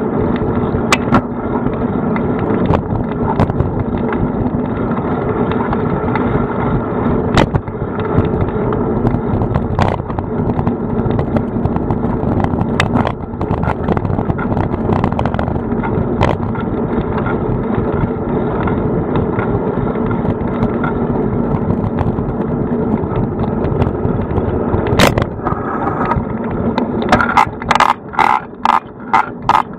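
A bicycle ride heard from a camera mounted on the bike's front: a steady loud rumble of riding noise with scattered sharp knocks from bumps. Near the end comes a quick run of regular knocks, about three a second.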